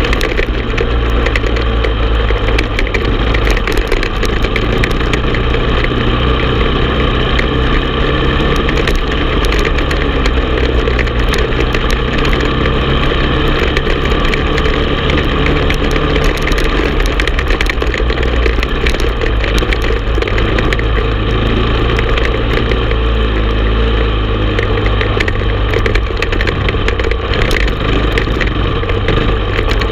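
Honda TRX450 quad's single-cylinder four-stroke engine running steadily while riding along a dirt trail.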